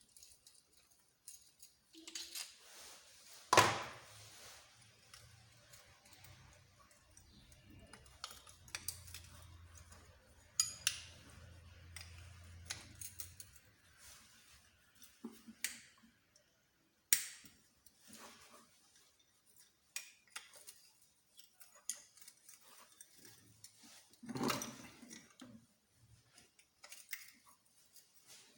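Metal tools and engine parts clinking, clicking and knocking as they are handled and set down, with a few louder knocks scattered through.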